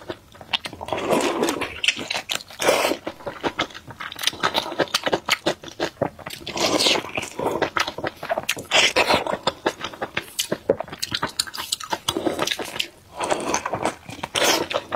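Close-up wet eating sounds: biting, chewing and lip-smacking on a sauce-soaked pork blood sausage in large-intestine casing. There are many sharp clicks and squelches in clusters every second or so.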